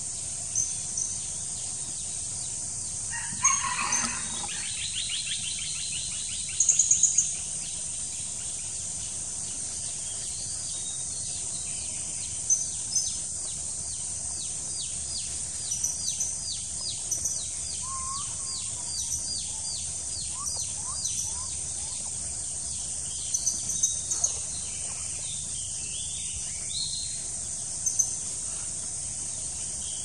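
Wild birds calling over a steady high-pitched insect drone: short high chirps scattered throughout, a louder call about four seconds in, and a long run of quick repeated notes, about two a second, through the middle.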